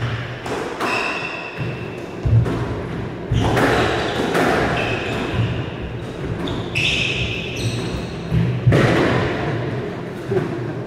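Squash rally: the ball cracking off rackets and thudding against the court walls in irregular hits, with players' footsteps and short high squeaks of sneakers on the wooden floor.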